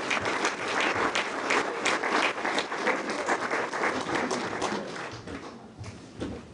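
Audience applauding and cheering for an entertainer's entrance, the clapping thinning out and dying away over the last couple of seconds.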